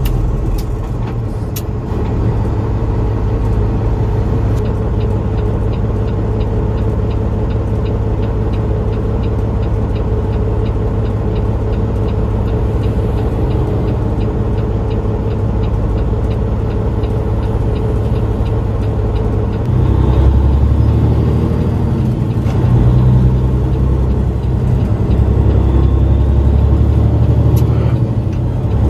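Semi truck's diesel engine running under way, heard from the cab as a steady low rumble. It gets louder and heavier from about two-thirds of the way through.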